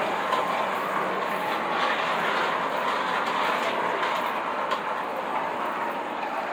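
Early 1900s Lionel 2 7/8-inch gauge electric toy trolleys running on two-rail track: a steady running noise of their motors and metal wheels on the rails, with a few faint clicks.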